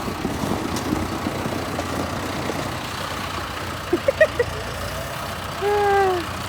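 Farm tractor engine idling steadily. A few short chirps come about four seconds in, and a short call that falls in pitch comes near the end.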